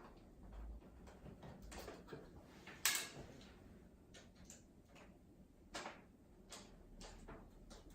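Scattered light clicks and taps of a small Torx T10 screwdriver and small screws being handled while the iMac's LCD panel screws are taken out, with one sharper click about three seconds in.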